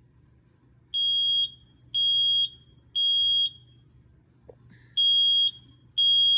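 Kidde smoke alarm sounding on test: a loud, high piezo beep in the three-beep temporal pattern, the fire-evacuation signal. Three half-second beeps come a second apart, then a pause of about a second and a half, then the next set of beeps begins.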